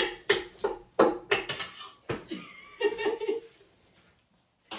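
A quick run of sharp clatters, about three a second, typical of kitchen utensils and a bowl being knocked about, mixed with laughing. The laughing goes on briefly afterwards, and the sound drops to near silence for the last second.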